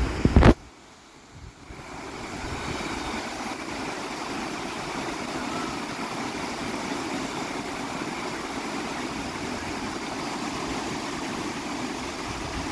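Wind buffets the microphone with a low rumble that cuts off suddenly about half a second in. From about two seconds in, small lake waves wash steadily onto a sandy beach.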